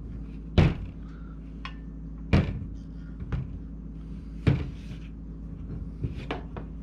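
A few sharp clunks and knocks, three of them loud, spaced a second or two apart, as a steel clutch and brake pedal assembly is worked on its support bracket to start a plastic pivot bushing and pin into place.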